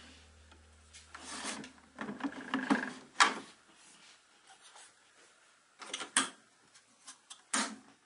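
The EcoFlow Glacier portable fridge's plastic battery pack is slid out of its slot in the side of the cabinet: hard plastic scraping and rubbing, ending in a sharp click about three seconds in. A few short plastic clicks and knocks follow near the end as fingers work at the empty slot.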